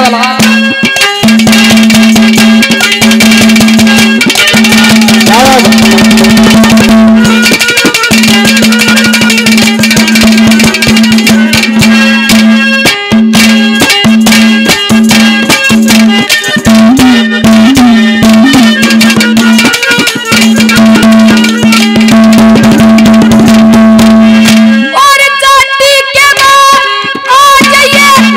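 Haryanvi ragni folk music: fast hand-drum playing over a steady held drone note. Near the end the drone drops out and a male singer comes in with a high, drawn-out sung line over the drums.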